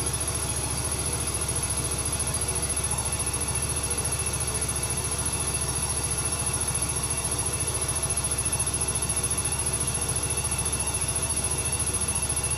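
Live electronic noise music from a table of mixer and effects units: a dense, steady drone with a low, rapidly fluttering hum under a haze of hiss and a thin, steady high whine.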